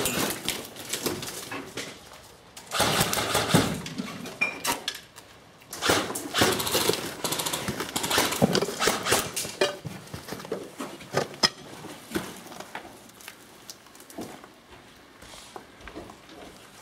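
Airsoft guns firing several bursts of rapid shots, with short pauses between them.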